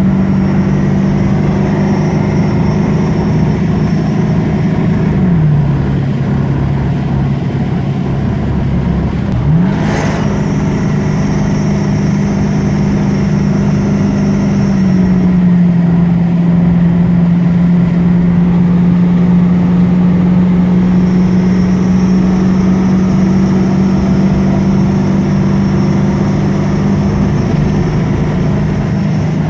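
Car running with a steady whining tone. The pitch drops about five seconds in, climbs back just before ten seconds, where there is a brief click, and settles a little lower about fifteen seconds in.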